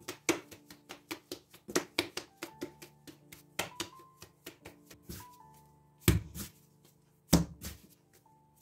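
Yeast dough being kneaded by hand on a silicone baking mat: a quick, irregular run of soft slaps and thumps as the dough is pressed, folded and turned, with two heavier thumps in the second half. Soft background music underneath.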